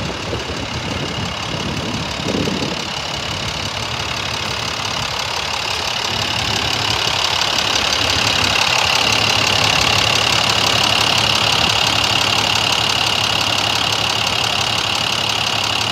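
International DT466 inline-six diesel in a 2005 International 4400 dump truck, idling steadily, with a steady high whine over the engine. The sound gets louder over the first half, then holds.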